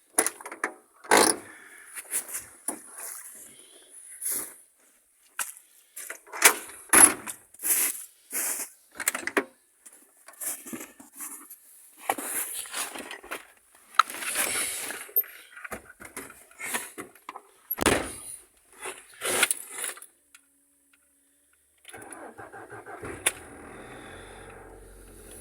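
A run of short clatters and knocks, like keys and doors being handled, then a car engine starts near the end and settles into a steady idle.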